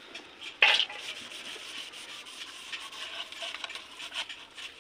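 Rubbing and scraping on a split bamboo pot: a continuous dry, scratchy noise made of many short strokes, with one sharp knock about half a second in.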